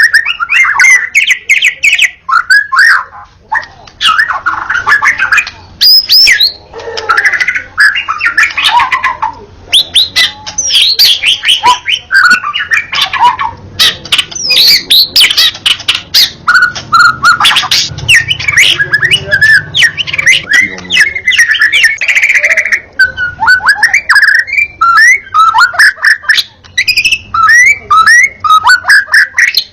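White-rumped shama (murai batu hutan, the wild forest type) in full song. It gives a loud, nearly continuous run of rapid, varied whistles, sweeps and sharp notes, with only brief pauses.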